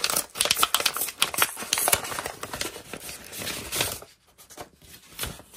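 Paper envelope being torn open by hand and the letter slid out: crisp tearing and rustling of paper that dies down about four seconds in.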